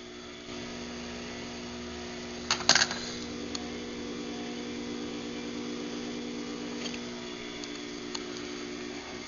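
Craftsman 139.53918D garage door opener's motor running steadily through a closing cycle, a smooth hum. About two and a half seconds in there is a brief burst of sharp clicks, the loudest sound.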